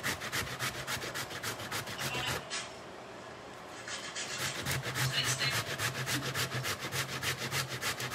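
Cassava root scraped down a stainless steel box grater in quick, even strokes, about five a second, with a pause of about a second and a half partway through.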